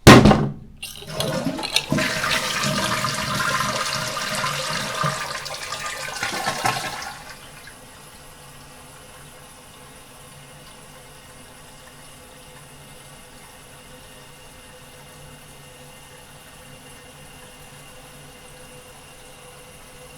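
A toilet being flushed: a sharp clack at the start, then about six seconds of loud rushing water. After that comes a quieter, steady hiss of the tank refilling.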